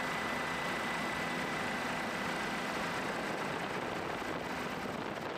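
Steady engine noise of a tour helicopter in flight, with a high, even whine running through it.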